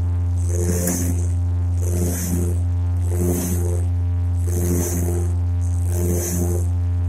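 Steady low drone of an aircraft in flight, heard inside the cockpit. Over it comes a rhythmic swishing scrape about every second and a half.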